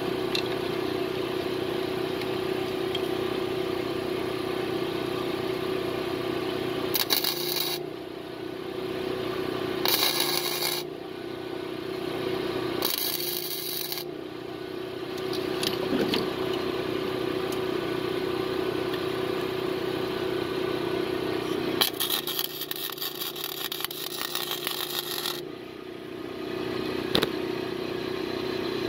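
MIG welder arc crackling in four bursts, three short and a longer one of about three seconds near the end, as a nut is welded onto a broken-off exhaust manifold bolt stub so that the bolt can be heated and turned out. A steady hum runs underneath.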